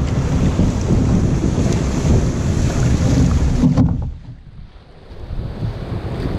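Water rushing and splashing along a kayak's hull as it moves through broken surf, with wind buffeting the camera microphone. A little under four seconds in, the sound drops suddenly and turns muffled, then builds back near the end.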